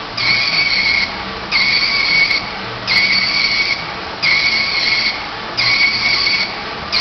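Emissions analyzer's printer printing a test report, in regular passes of just under a second each, about one every second and a half.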